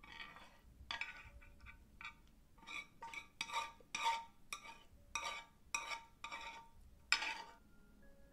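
Wooden chopsticks scraping and knocking against a rectangular egg pan as scrambled egg is pushed off it into a glass bowl of rice: about a dozen short, uneven scrapes and taps, the loudest one near the end.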